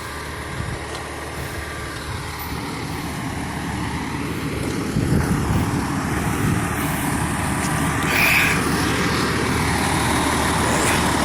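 Fire engine's diesel engine running, a low rumble that grows louder a few seconds in, with a brief higher-pitched burst about eight seconds in.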